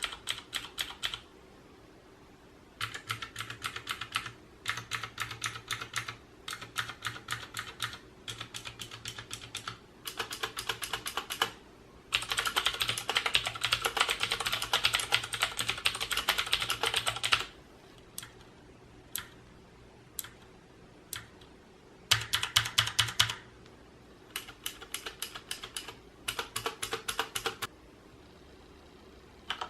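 Mechanical keyboard with Cherry MX switches being typed on in quick bursts of keystrokes, each burst a second or two long. The longest, densest run of typing comes about halfway through, followed by a few single key presses.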